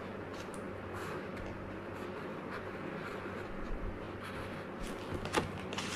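Felt-tip sketch pen writing on diary paper: faint, short scratching strokes over a steady low hum, with a sharper tick about five seconds in.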